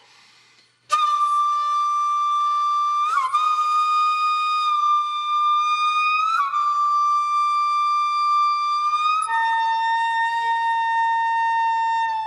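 Music: a flute-like wind instrument playing long held notes, bending up slightly into each new note, then stepping down to a lower held note near the end, after about a second of near silence.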